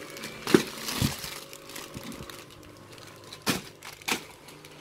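Clear plastic packaging bags crinkling as wrapped items are handled, with a few sharp crackles.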